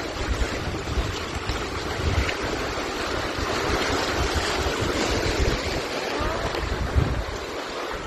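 Rushing whitewater of a mountain river as an inflatable raft runs a rapid, with wind buffeting the microphone in a heavy, uneven low rumble.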